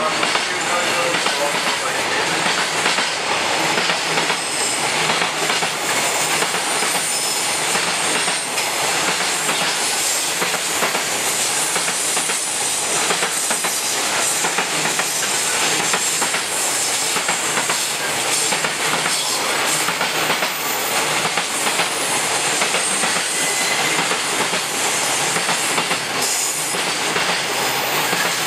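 Container freight wagons rolling past at steady speed: a continuous rumble and clatter of steel wheels over rail joints.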